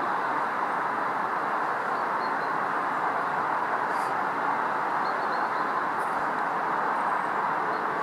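Soviet L-class 2-10-0 steam locomotive L-5289 hauling its passenger train away into the distance, heard as a steady, even rushing noise.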